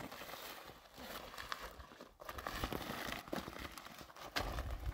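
Plastic sack crinkling and rustling as it is handled and lifted, with a few low thumps near the end.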